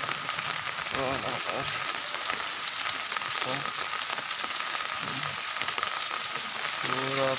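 Steady rain falling, a continuous even hiss with the drops striking the umbrella held just overhead.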